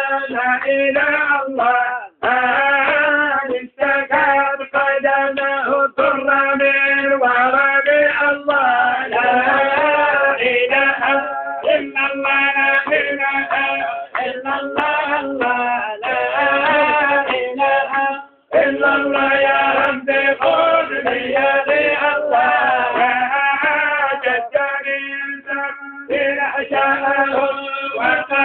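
A man's voice singing a long, ornamented chant in extended phrases, with short breaks for breath and a longer pause about eighteen seconds in.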